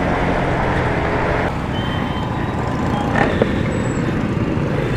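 Motorcycle engine running while riding in city traffic, with road noise and surrounding vehicles. The sound changes abruptly about a second and a half in.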